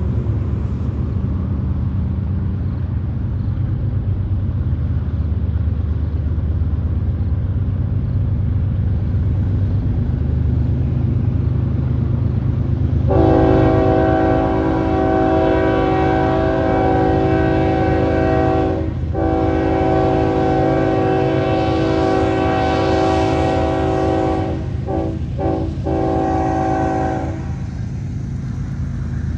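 BNSF freight train's GE diesel locomotives (ES44C4s and a C44-9W) rumbling as they approach. About halfway through the lead locomotive sounds its air horn in two long blasts, then a few short broken blasts and a final blast that stops shortly before the end.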